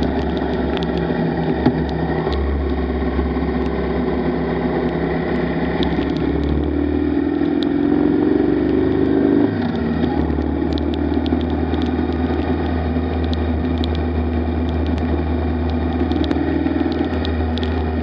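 Motorcycle engine running at road speed on a wet road, with wind and tyre noise. The engine note rises and grows louder from about seven seconds in, then drops abruptly about nine and a half seconds in. Faint ticks are scattered throughout.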